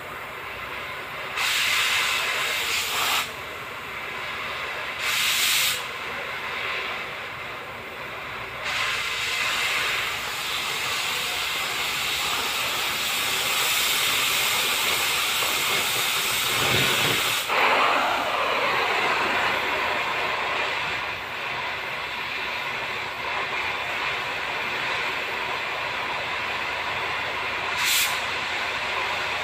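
Cutting torch hissing steadily as it cuts steel plate. There are two louder surges of hiss in the first few seconds and a short sharp pop near the end.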